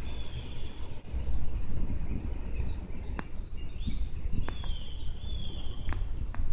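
Low wind rumble on the microphone, with a bird chirping in the background in short gliding calls that come most often about halfway through, and a few sharp clicks.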